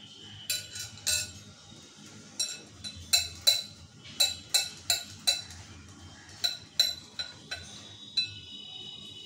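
Block of paneer being rubbed down a flat stainless-steel hand grater held in a glass bowl: a run of short, sharp scraping strokes in irregular bursts, the grater clinking against the glass.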